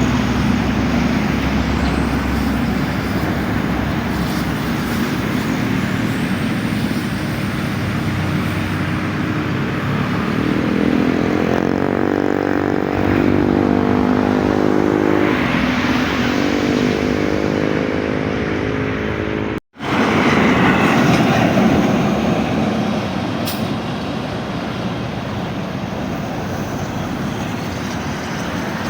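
Intercity buses' diesel engines running and pulling away in traffic, with one engine's low hum swelling in the middle. The sound drops out for an instant about two-thirds through.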